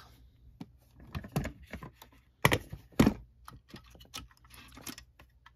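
Light clicks and taps of a diecast model stock car and the small items around it being handled by hand, with two sharper knocks about two and a half and three seconds in.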